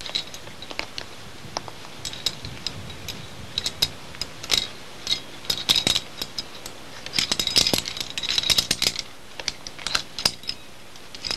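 Metal climbing carabiners clinking and tapping against each other and the harness as they are handled, in irregular sharp metallic clicks that come thicker toward the end.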